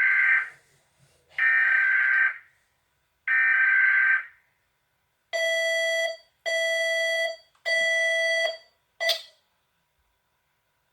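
Emergency Alert System tones: three data-header bursts of about a second each, a second apart, followed by three buzzing alarm tones of about a second each and a short blip near the end.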